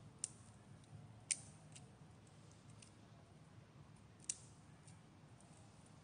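Three short, sharp clicks, the loudest about a second in and another about three seconds later, with a few fainter ticks, from hands working small sticks and tinder at a fire lay over faint forest background.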